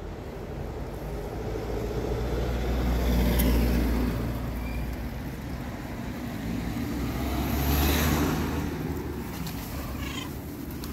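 Two cars pass on the street, each rising and fading as a low rumble of engine and tyres, the first about three and a half seconds in and the second about eight seconds in. A cat meows briefly near the end.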